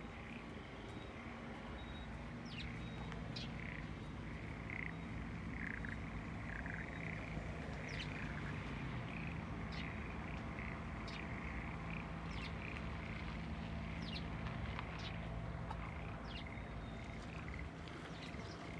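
Frogs in the flooded rice paddies calling over and over, short repeated croaks, with a few brief bird chirps. Beneath them runs a steady low hum.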